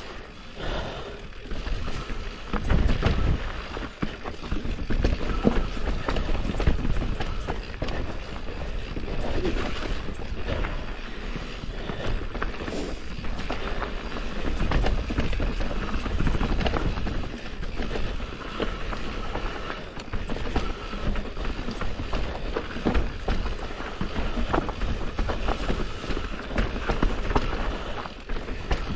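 Mountain bike descending a rough dirt trail: tyres rumbling over the ground with frequent rattles and knocks from the bike as it hits rocks and roots.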